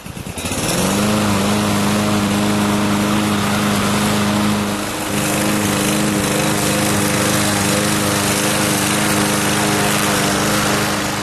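A machine's motor starts up, its pitch rising over about a second, then runs loud and steady with a brief dip about halfway through.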